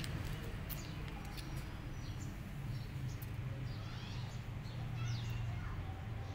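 Small birds chirping in short high calls, more of them in the second half, over a steady low rumble and a few faint clicks.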